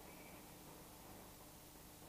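Near silence: a faint steady hiss with a faint low hum.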